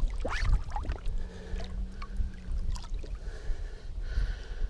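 Lake water sloshing and gurgling at the side of a boat as a musky is held in the water to revive it, over a steady low rumble.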